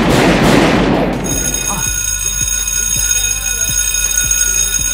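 A sudden loud burst of noise, then about a second in an alarm starts sounding steadily with several high piercing tones at once: a building's alarm going off.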